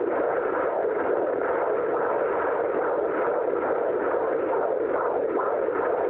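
Fetal heartbeat at 31 weeks picked up by a handheld doppler monitor: a fast, steady whooshing pulse over continuous hiss.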